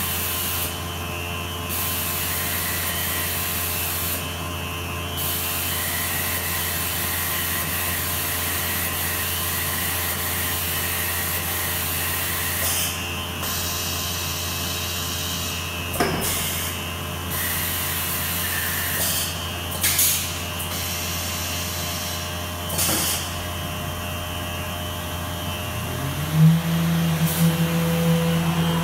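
Biesse Rover B CNC router machining a wood panel: the spindle and cutter run steadily under the dust extraction, with a high hiss that briefly dips every few seconds and a few sharp knocks. Near the end a motor tone rises in pitch and then holds.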